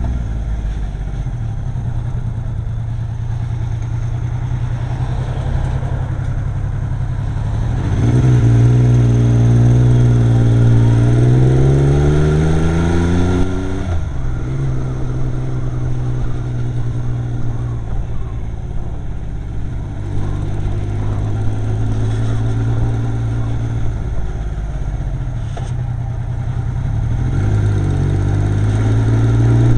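Yamaha XS850's air-cooled three-cylinder engine running, its revs climbing for about five seconds and then dropping back sharply, with a second climb near the end. The owner suspects a misfire that shows while riding, not at idle.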